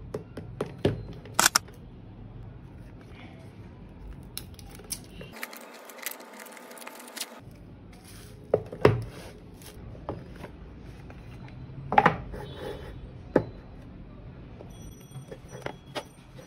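Hands handling a cardboard smartwatch box and its packaging on a tabletop: scattered taps, knocks and clicks, with about two seconds of crinkling plastic near the middle.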